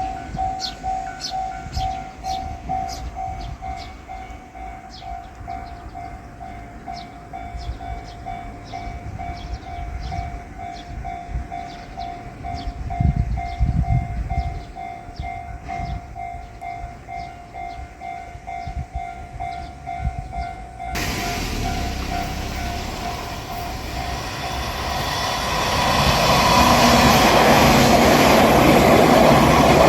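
A Japanese level-crossing alarm bell rings steadily, with evenly repeated strikes at about two a second. About twenty seconds in, the rush and rumble of a JR Shikoku 8000 series limited-express electric train passing over the crossing sets in suddenly and grows loud, drowning the bell.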